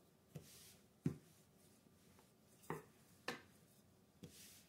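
Faint sounds of pie dough being rolled out with a wooden rolling pin on a counter: five light knocks spread over a few seconds, with a couple of brief soft rubbing sounds.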